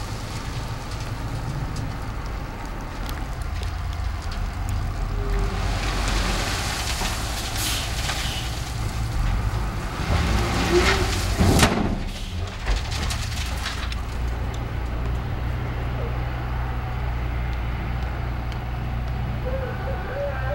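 Dump truck engine running steadily while the truck stands with its bed raised after tipping a load of gravel. A brief loud rush of noise comes a little past halfway.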